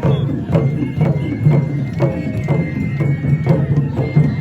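Japanese festival music (matsuri bayashi): drum strokes about twice a second under a high held note.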